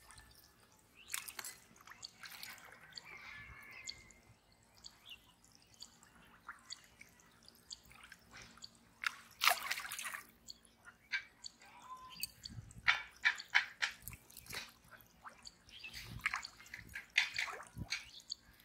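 Irregular small splashes and drips of water with wet squelching, in scattered bursts.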